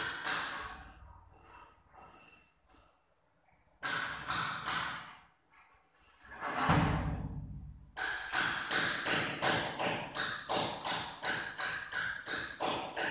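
Rubber mallet tapping a large porcelain floor tile, bedding it into the tile adhesive, in an even run of about three taps a second through the second half. Before that come a few separate knocks and a heavier thud as the tile is set down.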